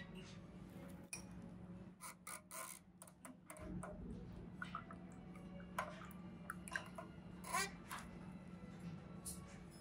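Milk running from a buffet milk dispenser's tap into a drinking glass, with a few sharp clicks of the glass and tap about two to three seconds in and short rising gurgles as the glass fills, over a faint steady hum.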